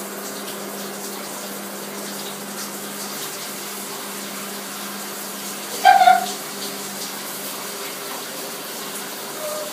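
Shower running steadily, water spraying in a bathtub shower, under a steady low hum. About six seconds in, one short high-pitched cry stands out above the water.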